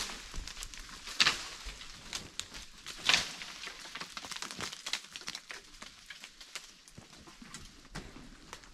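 Dry crackling and rustling on leaf-littered ground, with scattered light clicks and a few louder crunches about a second and three seconds in.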